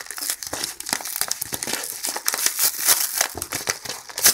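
Brown paper mailer envelope being torn open and crinkled by hand: a dense, continuous paper crackle, louder near the end.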